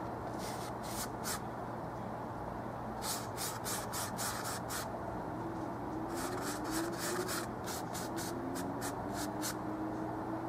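Flat paintbrush scrubbing oil paint onto canvas: short scratchy strokes in bunches, a few near the start, a quicker run around the middle, and a dense run in the second half.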